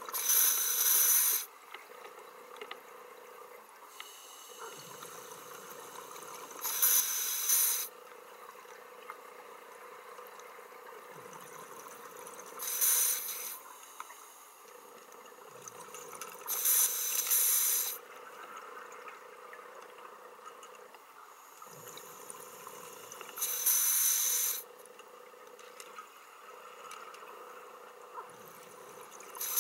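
Scuba diver breathing through an open-circuit regulator underwater: a loud rush of exhaled bubbles about every five seconds, each lasting a second or so, with quieter inhalations between, over a faint steady hum.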